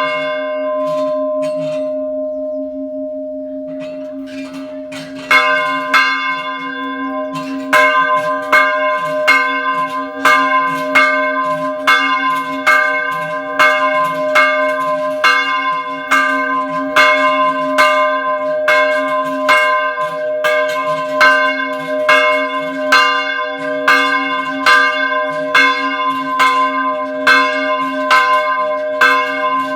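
Small church bell ringing in repeated strokes, about one and a half a second, each stroke's ring running into the next over a steady low hum. Early on the strokes pause and the ringing dies away, then they start again about five seconds in.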